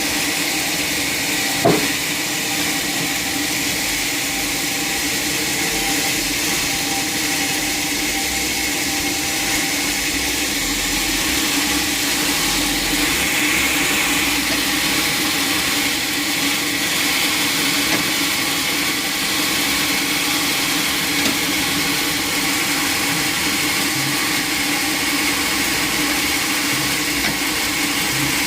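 Sawmill machinery running steadily: a constant drone with several held tones and a hiss over it, and a single sharp knock about two seconds in.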